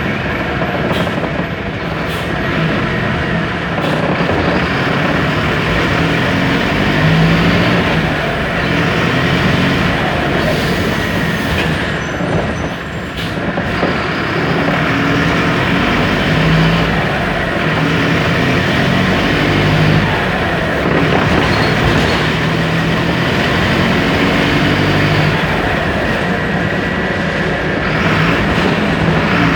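Mercedes-Benz OF 1721 BlueTec 5 bus's diesel engine running with the bus under way, its pitch climbing and dropping several times as it speeds up and shifts gear, over a steady din of road and body noise.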